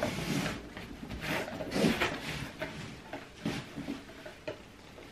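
Rustling and light knocks as clothes and packaging are handled inside a cardboard delivery box, dying away near the end.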